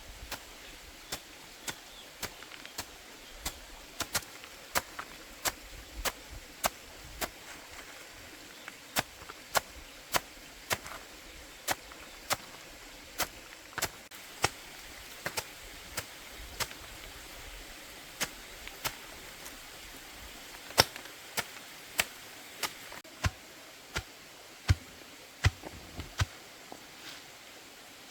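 A knife or cleaver chopping banana stem for chicken feed: sharp, separate chops at an uneven pace of about one to two a second, getting harder and louder in the second half.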